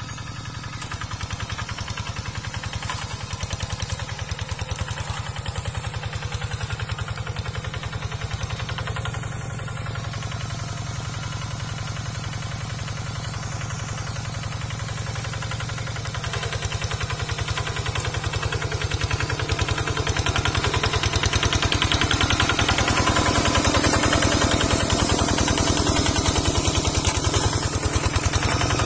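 Single-cylinder diesel engine of a two-wheel walk-behind hand tractor chugging steadily with a fast, even beat while pulling a plough through dry soil. It gets louder in the later part.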